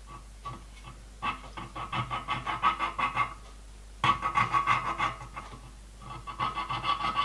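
Small square file stroking back and forth along the soldered edge of a brass sheet, cutting a groove in the joint. Three runs of quick, even strokes with short pauses between.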